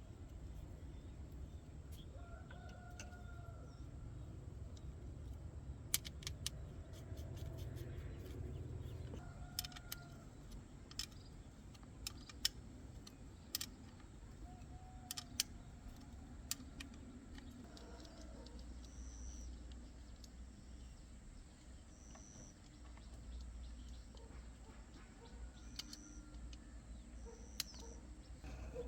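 Chickens clucking on and off, short rising-and-falling calls, over scattered sharp clicks and knocks that are the loudest sounds, most of them in the first half.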